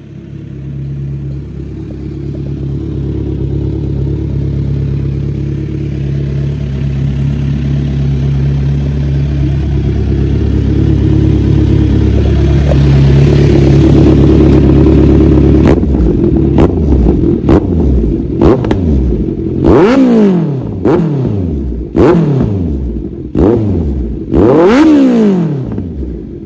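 Kawasaki Z900 inline-four idling through an SC Project titanium full-system exhaust, then blipped repeatedly from about two-thirds of the way in: a series of sharp revs, each rising and falling back to idle, the last few the biggest.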